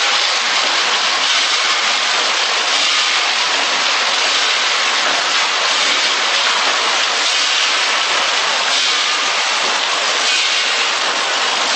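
ATM 420W automatic chips packing machine running, a steady, dense mechanical hiss and whir without a clear beat.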